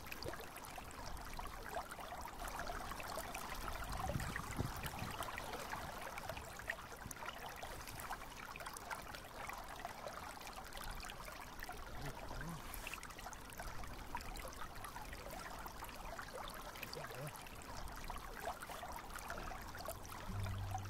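River water running steadily, with light rain falling.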